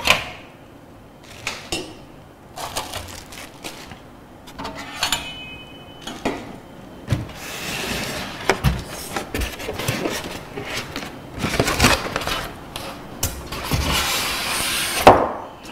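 Styrofoam packing blocks being worked loose and pulled off a boxed eggroll machine: scattered knocks and clicks, then a longer stretch of rubbing and scraping in the second half.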